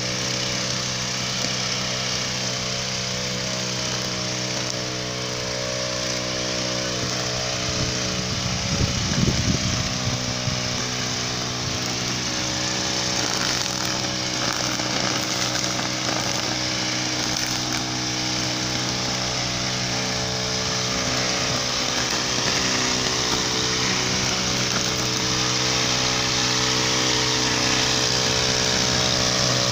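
Backpack brush cutter's small engine running steadily at working speed as its spinning trimmer head scrubs wet paving, with a louder, rougher stretch about nine seconds in.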